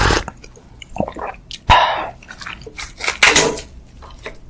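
Close-miked eating sounds from a bowl of seafood ramen: mouth noises with small clicks, and two short louder bursts, one just before two seconds in and one a little after three seconds in.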